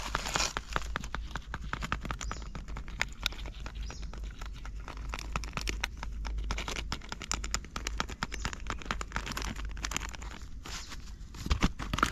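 Paper spice packet crinkling and being tapped to shake chilli powder over a steel bowl, making many quick irregular taps, with a steady low hum underneath. A couple of louder knocks come near the end.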